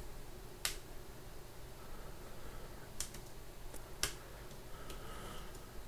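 A few sharp, isolated clicks of computer keyboard keys over a faint steady hum: one about half a second in, a quick pair around three seconds and another about four seconds in.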